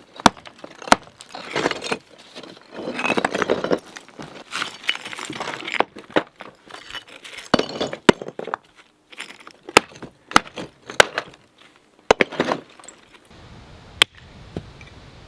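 Old chimney bricks being knocked loose and handled: repeated sharp clinks and cracks of brick striking brick, with stretches of scraping and gritty rubble as crumbling cement mortar comes away.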